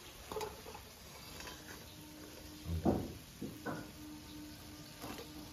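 A few light knocks and clinks of a metal slotted spoon against a metal karahi as fried cutlets are lifted out of the oil, the loudest about three seconds in.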